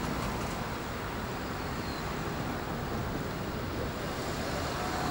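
Steady outdoor rumble and hiss with no distinct events, largely wind buffeting the microphone over distant traffic and rail noise.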